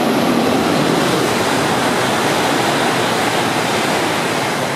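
E5 series Shinkansen passing through the station at high speed without stopping: a loud, steady rushing noise.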